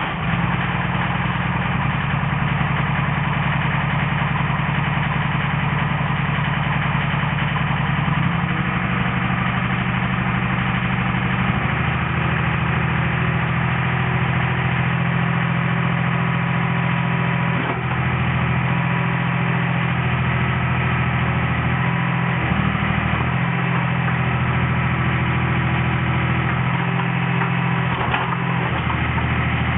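Yanmar diesel engine of a Takeuchi mini excavator running at idle, just after starting. Its note steps up and down several times in the second half as the boom and arm are worked.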